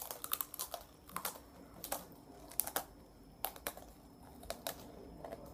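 Irregular sharp crunches and crackles of crunchy spicy snacks being bitten and chewed.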